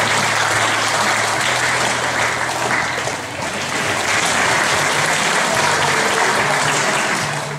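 Audience applauding steadily, the clapping easing off near the end.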